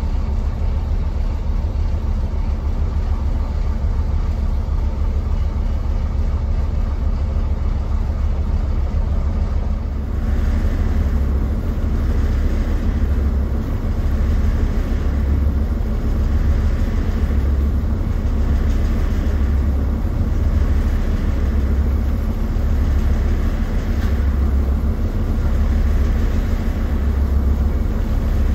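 Steady low drone of a passenger ferry's engine heard on deck. From about ten seconds in it swells and fades about every two seconds.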